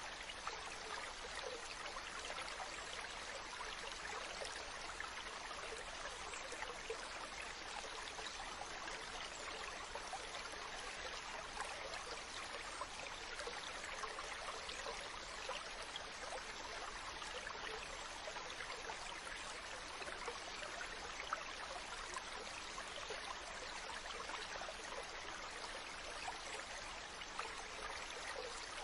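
Stream water running steadily, a continuous babbling rush with fine trickling detail.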